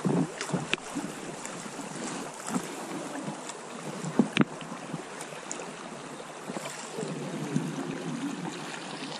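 Shallow river current running over a riffle around an inflatable PVC boat, a steady rushing wash, with scattered small knocks and one sharp click a little over four seconds in.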